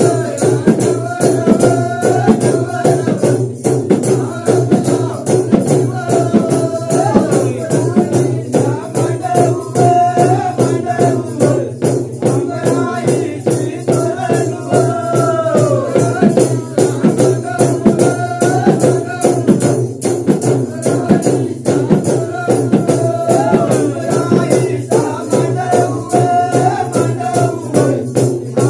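Several Adivasi dhak drums (double-headed barrel drums) beaten in a fast, steady rhythm, with a male voice singing a repeating devotional melody of a Gharyadev song over them.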